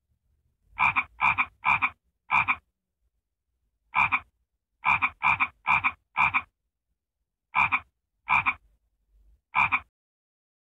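Frog croaking: about a dozen short, identical croaks in uneven runs of four, one, four, two and one, with silence in between.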